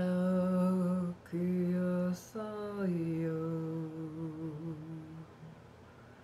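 A woman humming a wordless chant in long held notes. The first two notes are steady, with a short break between them. The third starts a little higher, slides down, wavers and fades out about five seconds in.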